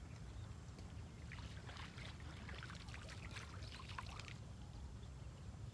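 A small hooked river catfish splashing at the water's surface for about three seconds as it is reeled in, a burst of irregular splashes over a steady low rumble.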